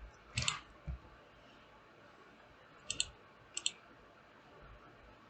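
Faint computer mouse clicks, a few short pairs of clicks at a desk, about three and three and a half seconds in.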